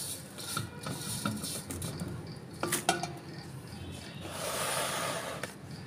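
Masala-coated green chillies and lemons being tipped from a plate into a plastic bucket: light clinks and knocks of the plate, then the mix sliding in with a rustling rush for about a second near the end.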